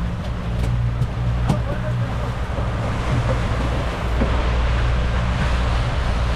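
Fishing boat's engine running steadily under way, a low steady drone, mixed with wind on the microphone and the rush of water from the wake.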